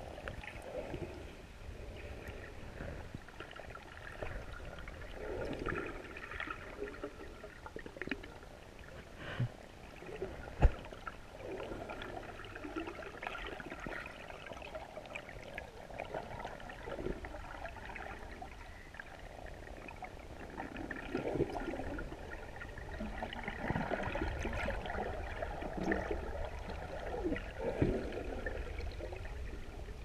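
Muffled sloshing and gurgling of shallow sea water heard from a camera held just under the surface, rising and falling with the swell. There is a single sharp knock about a third of the way through.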